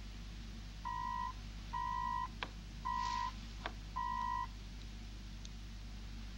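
Handheld communicator (commlock) beeping four times, a steady mid-pitched tone of about half a second each, roughly once a second: an incoming call signal. A couple of sharp clicks fall between the later beeps.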